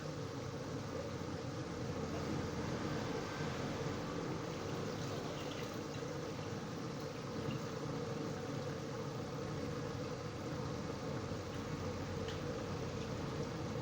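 Flour-coated chicken pieces deep-frying in oil: a steady sizzle with a few faint pops. The chicken is nearly cooked and starting to turn golden.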